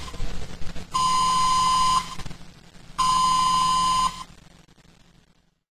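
Microwave oven's timer beeping at the end of its cycle: two long, steady electronic beeps of about a second each, two seconds apart, with a faint low hum underneath that dies away near the end.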